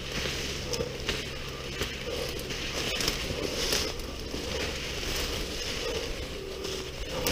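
Footsteps pushing through dense, low forest undergrowth: twigs and leaves crunching and brushing against legs and body in a steady, irregular crackle.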